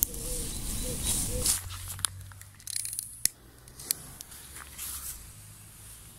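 Rustling and crackling in grass and dry leaves, broken by several sharp clicks. A steady hiss fades out about one and a half seconds in, leaving quieter rustles.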